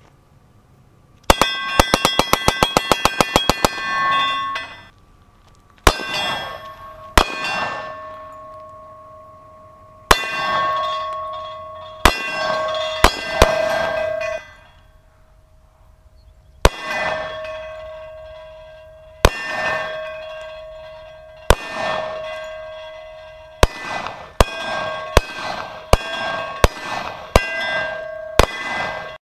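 A Glock 17 9 mm pistol bump-fired at steel plates: a rapid string of about fifteen shots, roughly eight a second, with the steel ringing as it is hit. Then single pistol shots at steel plates, a second or two apart and quicker near the end, each setting the plates clanging and ringing as the tone fades away.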